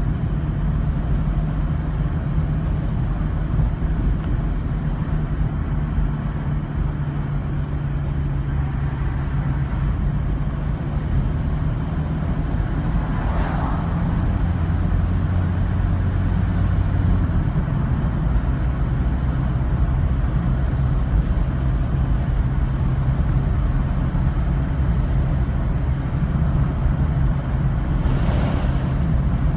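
A car's engine and road noise heard from inside the cabin while driving: a steady low hum whose pitch shifts now and then, with two brief whooshes, one about halfway through and one near the end.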